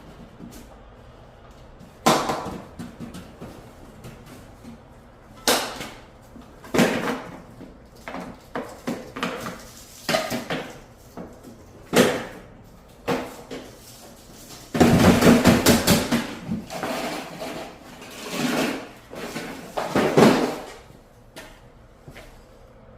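Irregular knocks, clatters and scrapes of hard objects being handled, with a dense rattling burst about halfway through.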